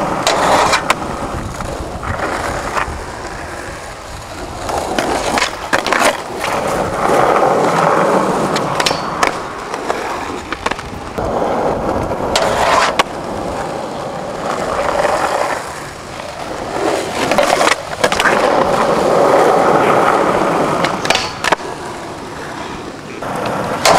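Skateboard wheels rolling, the rolling noise swelling and fading several times as the board passes, with sharp clacks of the board popping and landing every few seconds.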